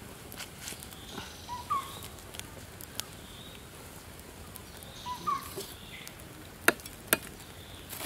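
Wood fire crackling with scattered sharp pops, the two loudest near the end, while a bird gives the same short rising chirp twice.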